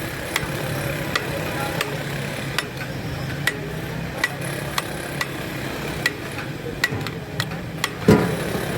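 Metal kitchen utensils clinking against pots and trays in a busy restaurant kitchen: sharp ringing clinks, one or two a second at an irregular pace, over a steady background din, with a heavier knock near the end.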